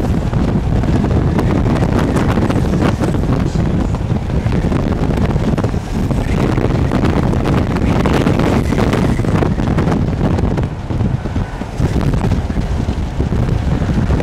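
Strong gusty wind buffeting the microphone, a loud rushing noise that eases briefly about eleven seconds in.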